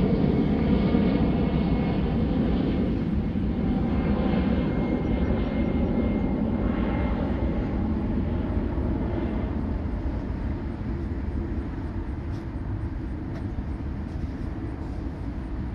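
An airplane's engine noise going by, a steady rumble with a faint high whine that slowly fades away as the aircraft moves off.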